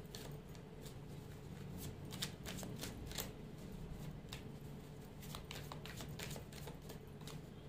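A deck of tarot cards shuffled by hand: a run of soft, irregular card flicks and slaps that stops shortly before the end.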